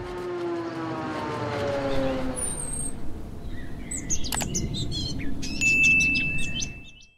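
Animated-logo sound effects: a falling synthetic tone with a whoosh, then a few sharp clicks as the Subscribe button is pressed, and a steady high ringing notification tone near the end that fades out.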